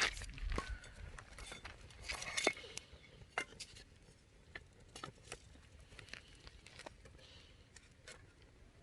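Wood campfire burning, with irregular crackles and sharp pops from the firewood; a louder rustling stretch in the first couple of seconds.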